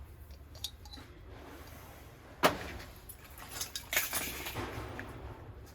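Small metal items, such as brass kitchenware, clinking and rattling as they are handled, with one sharp knock about two and a half seconds in and a run of jangling clinks after it.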